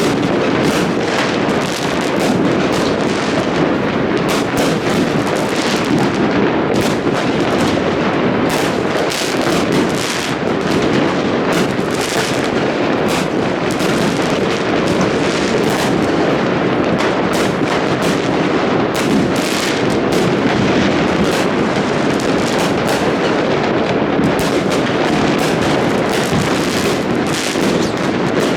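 New Year fireworks going off in a dense, continuous barrage: many overlapping bangs and crackles with no break between them.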